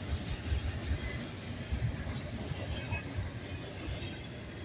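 Double-stack intermodal container train rolling past: a steady low rumble of the well cars' steel wheels on the rails, with small uneven swells.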